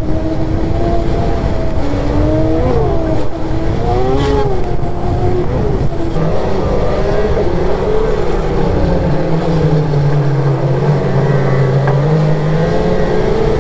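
Polaris Patriot Boost turbocharged 650 two-stroke snowmobile engine running at high revs, around 6,000 rpm, as the sled rides along a trail. Its pitch rises and falls with the throttle in the first half, then settles lower and steadier.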